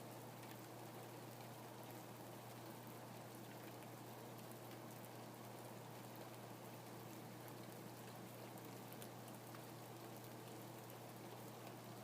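Steady, faint rainfall, an even hiss with many small drops ticking throughout.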